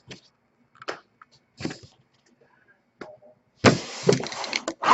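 A few light clicks and taps, then about three and a half seconds in a loud, dense crackling and rustling starts: card-box packaging being handled and opened.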